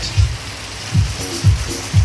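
Background music with a steady beat, about two low beats a second.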